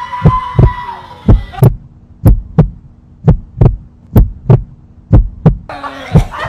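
Heartbeat sound effect: a deep double thump, lub-dub, about once a second. The room sound and voices under it drop out about a second and a half in and return near the end.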